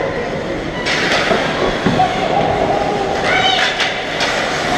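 Ice hockey skates scraping and carving on the ice, a hiss that starts abruptly about a second in as skaters rush toward the net, with voices calling across the rink.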